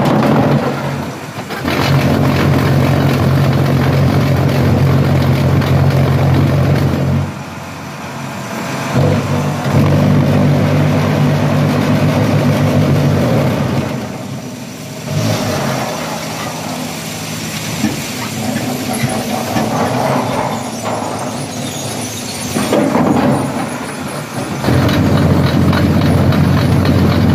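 Concrete block making machine running through its moulding cycle: a loud, steady hum from the vibrating mould in stretches of several seconds, broken off twice, over constant mechanical clatter as the tamper head and feed box move.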